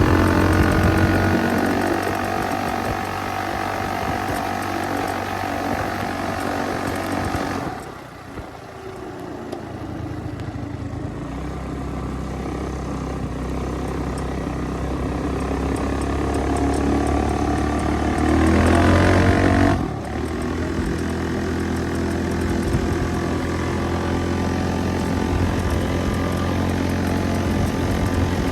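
Small motorbike engine under way while being ridden. The throttle closes sharply about eight seconds in and the revs sink. They climb slowly and rise again, then drop off abruptly at about twenty seconds before the engine settles to a steady run.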